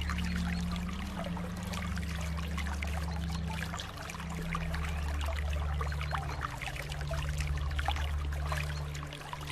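Water trickling and splashing in a steady flow, with many small drips and splashes, over a steady low hum.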